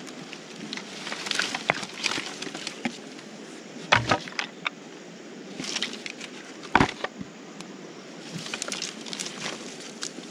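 Dry driftwood branches being picked up and gathered by hand: an irregular clatter of small clicks and cracks in scattered clusters, with two louder knocks about four and seven seconds in.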